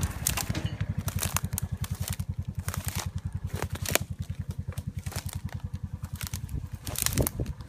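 Footsteps through dry grass and brush, with twigs and stems crackling and snapping. Underneath runs a low, even throbbing of about eight beats a second, like a small engine idling.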